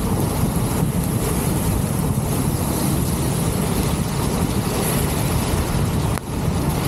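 Steady road noise from a vehicle travelling on a wet road: engine, tyre hiss and wind buffeting on an exposed microphone. The level dips briefly about six seconds in.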